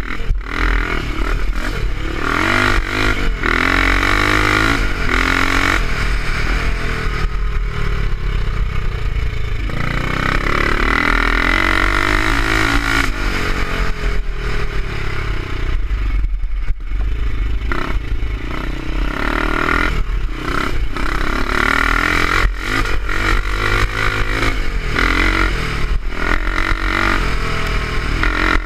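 350 BSA single-cylinder four-stroke scrambler engine revving hard and easing off again and again as it is ridden at racing speed, the pitch climbing and dropping with each burst of throttle. Clattering knocks from the bike over the bumps run through it.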